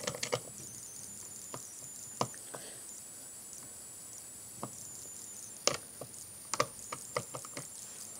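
Screwdriver turning a screw out of a vacuum cleaner motor's metal housing: scattered small metallic clicks and taps, a few near the start and a quicker run in the second half.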